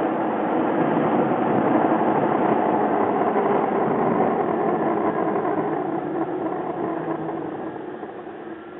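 Vehicle running, a steady mix of engine and road noise that fades away over the last few seconds.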